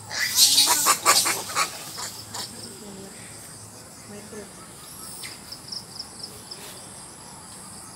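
Insects chirping in a high, rapidly pulsing rhythm, with a loud burst of rustling, scraping noise in the first two seconds or so.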